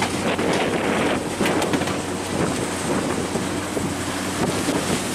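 Lobster boat's engine running steadily under wind buffeting the microphone and open-water noise, with scattered small clicks and knocks from work on deck.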